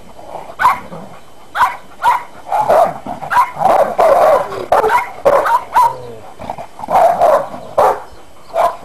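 Two dogs play-fighting, giving short barks and yips in quick succession; the calls crowd into a dense, almost continuous run around the middle before spacing out again.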